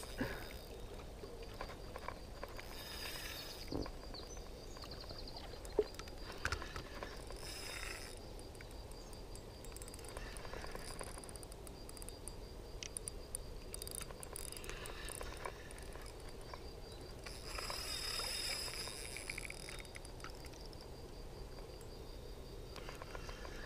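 Quiet riverside ambience: faint insect chirping with a steady high tone and a few passing buzzy swells, broken by a few soft clicks.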